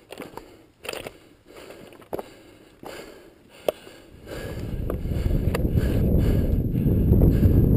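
Hands and boots on loose rock scree: scattered clicks, knocks and scrapes of shifting stones. About four seconds in, a loud low wind rumble on the microphone rises and takes over as the climber comes onto the open crest.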